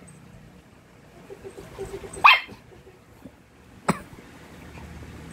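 Small mixed shih tzu dogs play-fighting: one short sharp bark about two seconds in, with a few faint low sounds before it, and a sharp click just before four seconds.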